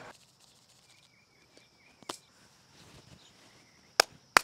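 Quiet outdoor background with a faint steady insect drone and a few soft chirps. Two sharp clicks come near the end.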